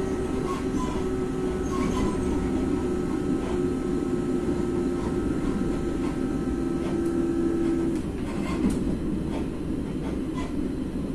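Inside an FS ALe642 electric railcar running along the line: steady rumble of the running train with wheel clicks over the rail joints. A steady multi-tone whine runs with it and cuts off about eight seconds in.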